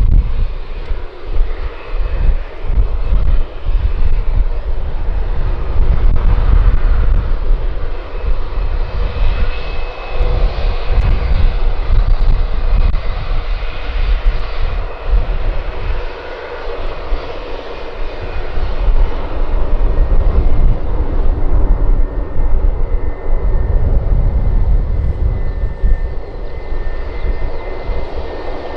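Airbus A320 jet engines running at taxi power with a steady whine as the airliner taxis and turns on the runway. Heavy, gusting wind rumbles on the microphone over it.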